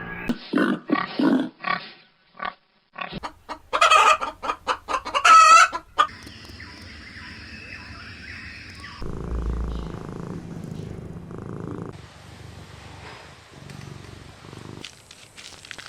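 Chickens clucking in short, quick bursts, with a louder drawn-out wavering call, like a rooster's crow, about five seconds in. After about six seconds this gives way to a quieter farmyard background.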